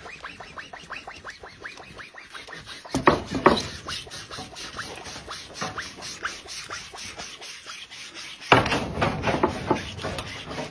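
A cow's horn, grown in against its face, being sawn through: quick, even back-and-forth rasping strokes, about four a second, getting louder about three seconds in and again near the end as the cut heats enough to smoke.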